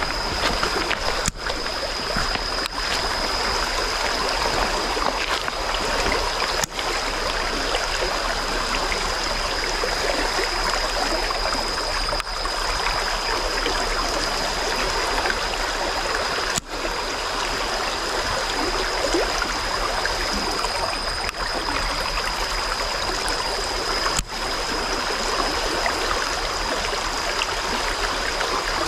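Fast-flowing stream water rushing and gurgling steadily; the stream is running high. A thin, steady high tone sits over it and drops out for a few seconds midway.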